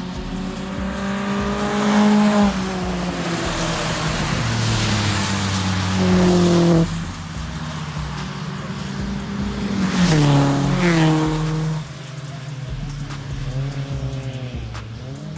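Track cars' engines revving hard as they come down the straight, with the pitch climbing and then falling away sharply several times. A hiss of tyre spray on the wet track runs underneath.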